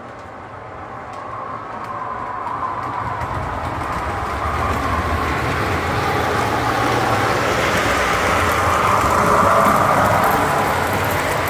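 Williams O gauge model EP-5 electric locomotives rolling along three-rail track, a steady running rumble of wheels and motors that grows louder as the train comes close, loudest near the end.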